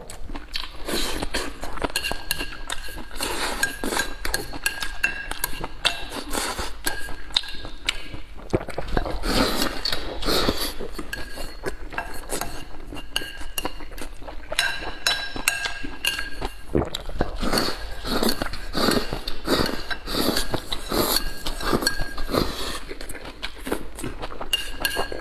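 Metal chopsticks clinking and scraping against a ceramic bowl, with short ringing tones, mixed with close-up chewing and mouth sounds.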